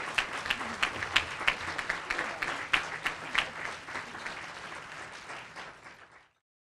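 Audience applauding, many people clapping at once. The applause slowly thins, then cuts off suddenly about six seconds in.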